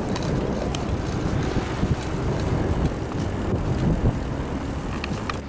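Wind rushing on the microphone of a moving bicycle, with riding noise and a few light clicks and rattles.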